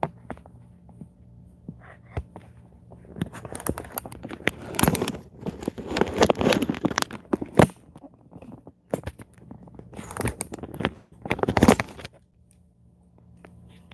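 Handling noise from a camera being moved and repositioned on its stand: irregular rubbing, scraping and knocks right against the microphone, in bursts from about three seconds in until near the end, with a few scattered clicks before.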